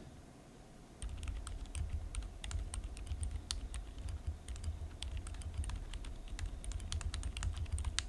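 Typing on a mechanical keyboard fitted with Outemu Silent White switches: a fast, uneven run of key presses that starts about a second in.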